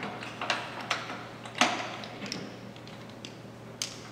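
Irregular sharp clicks and knocks, about six in four seconds, from the controls of a Lagun FCM1600 milling machine being worked: the feed-speed selector dial and levers being turned and shifted. A steady low hum from the running machine sits under them.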